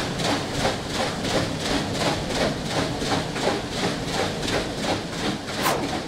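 Mill water wheel turning, with a steady rhythmic clatter and splash of about three beats a second.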